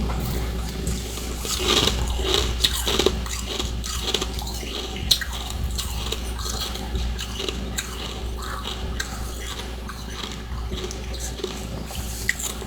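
Close-up chewing and crunching of freezer frost and ice chunks in the mouth: a dense run of crisp crackles about two seconds in, then lighter, scattered crunches.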